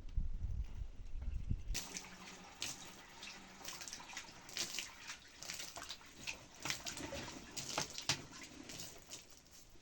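Low rumble for the first couple of seconds, then water splashing and sloshing in irregular bursts, with small drips.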